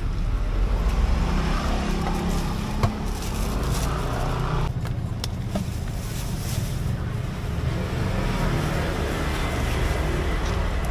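Steady low rumble of road traffic passing close by, with a couple of sharp clicks about three and five seconds in.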